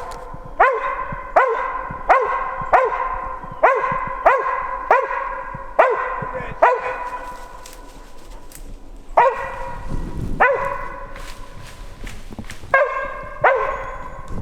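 Squirrel-hunting dog barking over and over, about one bark every 0.7 seconds, nine barks in a row, then a pause of a couple of seconds and four more barks near the end.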